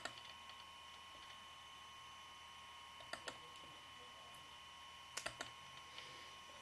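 Faint clicks of a laptop's trackpad button: one at the start, a pair a little after three seconds in and a quick group of three just past five seconds. A faint steady high whine runs underneath.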